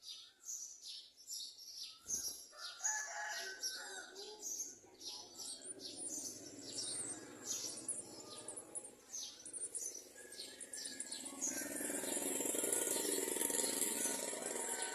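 Garden sunbirds at the nest chirping rapidly and over and over in short high notes. There is a knock about two seconds in, and a louder rushing noise starts near the end.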